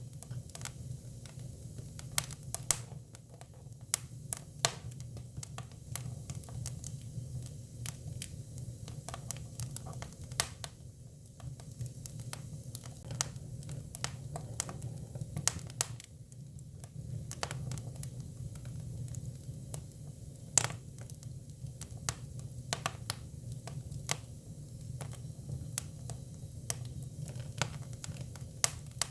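Hinoki cypress firewood burning, with irregular sharp crackles and pops over a steady low rumble of the flames.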